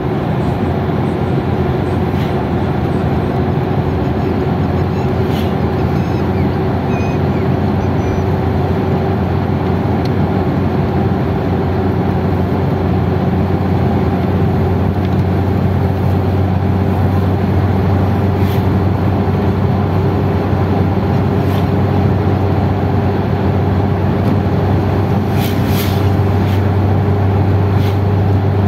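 Engine and tyre-on-road noise heard from inside a vehicle's cabin while driving at speed, a steady drone that grows slightly louder over time. A few faint light clicks or rattles come through now and then.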